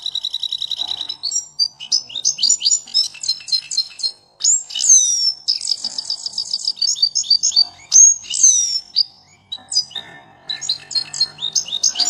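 A caged canary singing a long, varied song: fast trills of rapidly repeated notes mixed with quick rising and falling whistled sweeps, with brief breaks about four seconds in and again near ten seconds.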